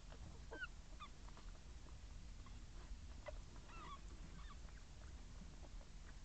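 Newborn puppies squeaking faintly: a handful of short, high squeaks, mostly in the first second and again around three to four seconds in.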